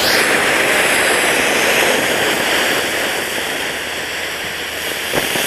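A 'magic tree' ground fountain firework spraying sparks with a steady hiss that eases slightly toward the end.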